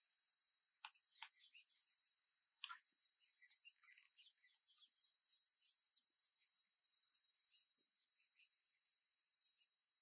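Faint outdoor ambience: scattered short bird chirps and a thin high rising note now and then, over a steady high insect hiss. There are a few sharp ticks in the first few seconds.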